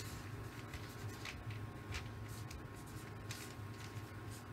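Felt-tip marker writing on paper: a series of short, irregular scratching strokes, over a faint steady room hum.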